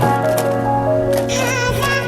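Music with held chords over a steady bass note and a few light percussive ticks.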